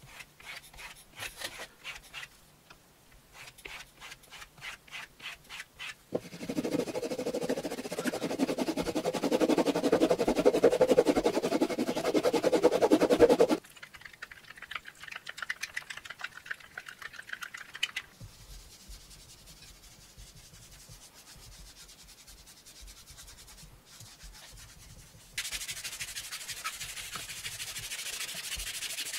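Leather worked by hand: a flat tool stroked quickly and evenly over the suede flesh side of a leather sheet, then a stretch of louder continuous rubbing. After that come quieter short strokes as a stick stirs thick paste in a jar, and near the end a steady hissing rub over the coated leather surface.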